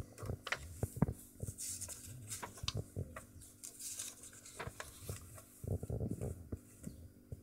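Pages of a paperback book being leafed through: brief papery rustles of pages turning, with scattered light clicks and taps as the book is handled.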